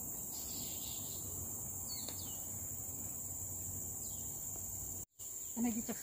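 Steady, high-pitched drone of insects in tropical forest, with a couple of faint short chirps. The sound cuts out for a moment about five seconds in, and voices begin right after.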